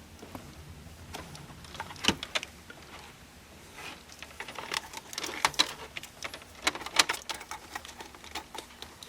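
Irregular clicks and rattles of plastic parts and wiring being handled as the cigarette lighter's power connector is plugged back in: a single click about two seconds in, then a busier run of clicks, the loudest about seven seconds in.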